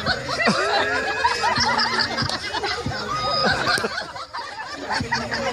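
A group of teenage girls laughing and chattering over one another, many voices at once, with a brief lull about four seconds in.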